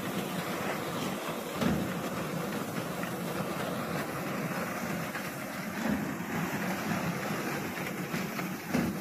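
Reaper binder running in wheat: a steady engine and cutter-mechanism clatter, with a low thump every two to three seconds.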